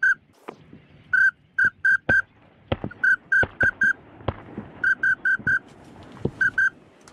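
A duck whistle call blown in short, high peeps, in quick runs of about four repeated every second or two, to work incoming ducks. A few sharp clicks fall between the runs.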